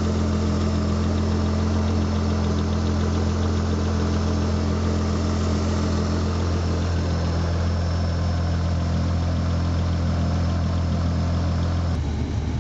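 Car engine idling steadily with the air conditioning running at its coldest setting. The system is low on refrigerant and not cooling the cabin. The tone shifts slightly near the end.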